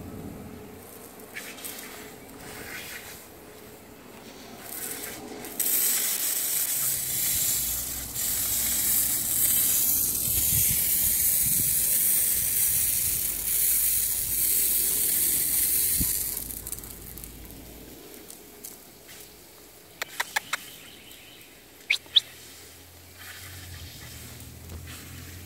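Water from a lawn sprinkler hissing. The spray comes on loud and sudden about five seconds in, runs for about ten seconds, then fades. Near the end there are a few sharp clicks.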